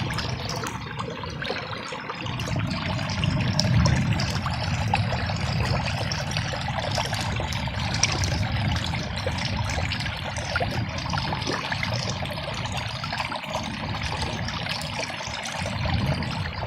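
Steady rain with water running and trickling close by: a dense, even patter of drops. Low rumbles swell up right at the start and again a few seconds in.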